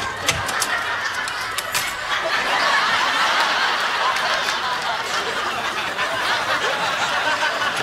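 Studio audience laughing, a long unbroken laugh that swells about two seconds in and holds, with a few sharp clicks in the first couple of seconds.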